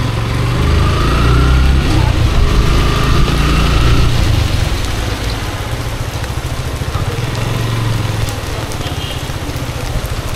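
Road traffic in a jam: a steady, loud low engine rumble under a noisy wash of street sound, with two faint, slightly rising whines in the first few seconds.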